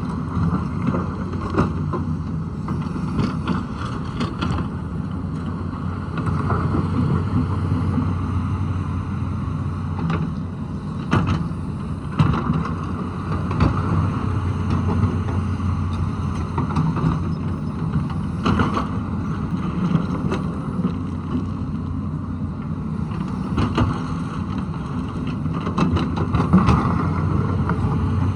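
Tata Hitachi excavator's diesel engine running steadily, with sharp knocks now and then.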